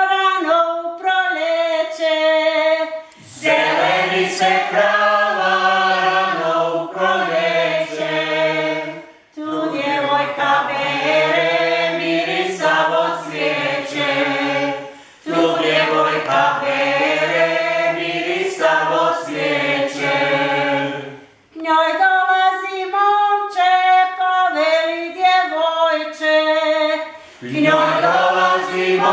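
A small mixed group singing a Croatian folk song unaccompanied. Higher voices sing a line on their own, then the whole group comes in lower and fuller, with short breaks between the phrases.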